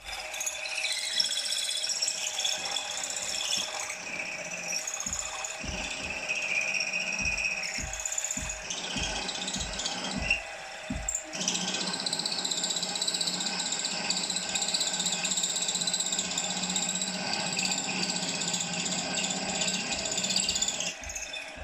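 Drill-mill running with its drill bit cutting through a metal casting held in a vise: a steady motor whine with the scrape of the bit feeding in. The tone changes about eleven seconds in.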